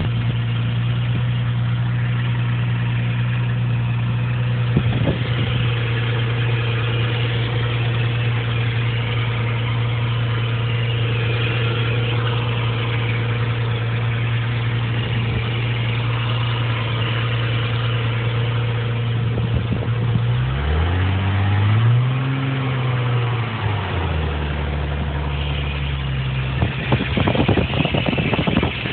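Nissan 300ZX V6 idling on a cold start with a scraping, rotational sound over a steady hum. About two-thirds of the way through the engine note dips, swells and settles lower for a few seconds, then comes back up with a brief rough clatter near the end.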